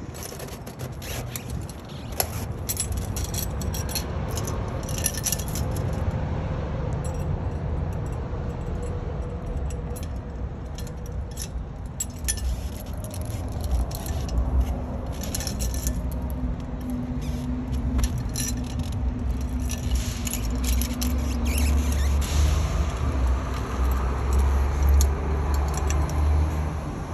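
Heavy steel tire chain links clinking, jangling and scraping as a spring tensioner's leg is levered tight onto the side chain of a large tractor tire chain. A steady low rumble runs underneath, louder in the second half.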